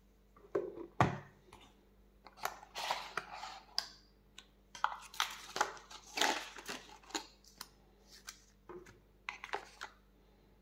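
Tablet packaging being handled during unboxing: scattered rustles, scrapes and light clicks of box and wrapping, with a sharp knock about a second in.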